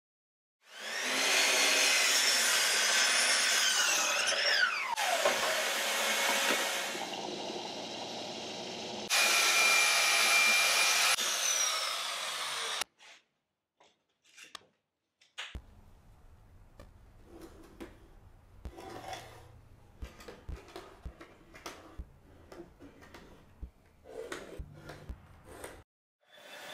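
Festool track saw cutting walnut boards in several short edited takes; its motor runs loudly and once winds down with a falling pitch. Then come quiet knocks and clicks of boards, a steel square and a tape measure being handled.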